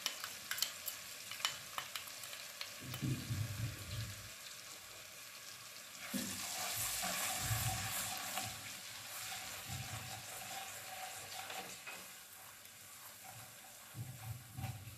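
Ground spices and garlic-ginger paste sizzling in hot oil in an aluminium pot, stirred with a silicone spatula. A few light clicks near the start, and the sizzle gets louder about six seconds in as the stirring picks up.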